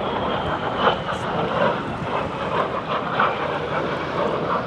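de Havilland Vampire's Goblin turbojet, a steady jet rush as the aircraft flies its display. A thin high whine slowly drops in pitch in the first second.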